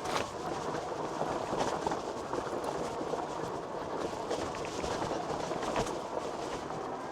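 Electric mountain bike riding over a dirt single-track trail: a steady rumble of tyres on dirt and loose stones, with scattered sharp knocks and rattles from bumps.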